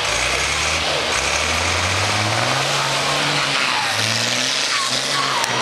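Mercedes-Benz Unimog trial truck's engine working under load on a steep rocky climb, revving up and falling back several times.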